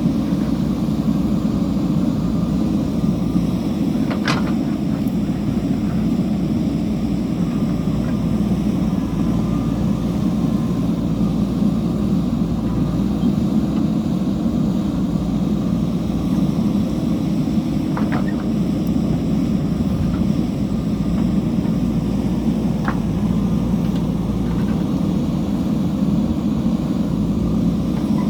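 Diesel engine of a JCB backhoe loader running steadily under work, a low even drone, with a few brief knocks: about 4 seconds in, about 18 seconds in and about 23 seconds in.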